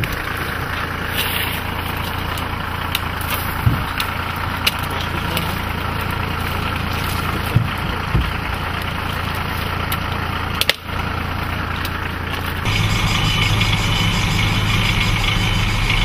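A motor vehicle's engine idling with a steady low hum, with a few short sharp knocks and cracks over it. About three-quarters of the way through, the sound switches suddenly to a louder, different engine hum.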